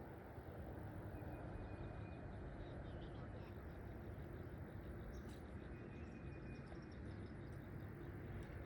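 Quiet outdoor ambience: a low wind-like rumble on the microphone with a few faint bird chirps.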